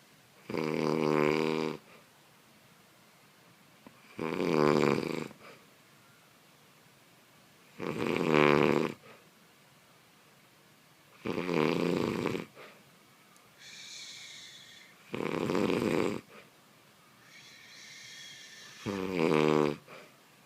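A person snoring in sleep: six loud snores, one roughly every three and a half to four seconds, with a softer, airy breath between the later ones.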